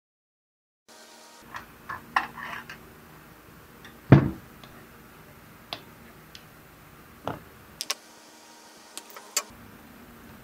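Scattered small metallic clicks and knocks from a screwdriver and hands working on a battery charger's sheet-metal case while the bridge rectifier's mounting screw is undone from its aluminium heatsink. One knock about four seconds in is louder. The first second is dead silence.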